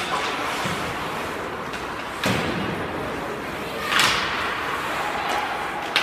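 Ice hockey play in a rink: a few sharp knocks of puck and sticks against boards and ice, about two seconds apart, the one about four seconds in longer and hissier, over a steady murmur of the arena.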